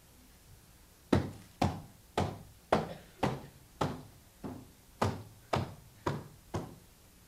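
A vertical wall trim piece worked by hand along its industrial-strength Velcro strips on a post: about a dozen short, sharp sounds, roughly two a second, starting about a second in.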